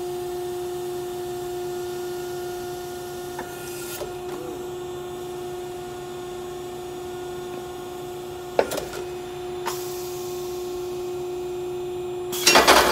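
Diesel exhaust catalyst stuffing machine running with a steady hum, with a few light clicks and a loud, short crackling burst near the end as the ram pushes the part into the funnel.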